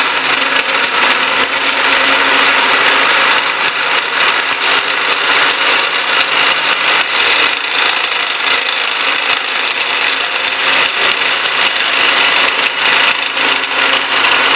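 Power tool spinning up with a short rising whine, then running steadily under load on steel tubing: a high, even whine over loud harsh noise.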